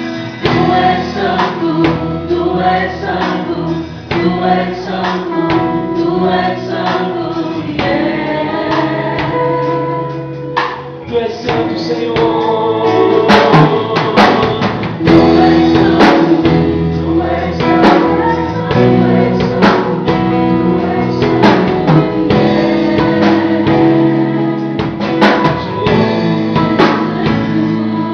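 Christian worship song in Portuguese: voices singing together over a band, with drum strokes coming in more strongly from about halfway through.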